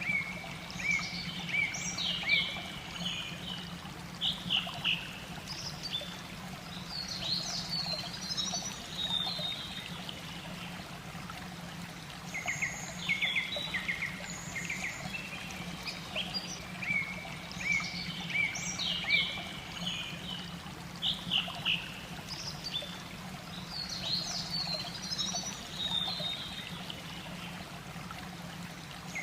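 A songbird singing bouts of quick high notes and short whistled glides every few seconds, over the steady trickle of a mountain stream.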